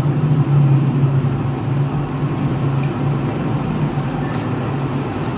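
Steady low mechanical hum with a few faint clicks about four seconds in.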